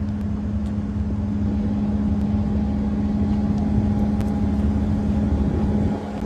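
Boat engine running steadily with a constant low hum and rumble, dipping briefly near the end.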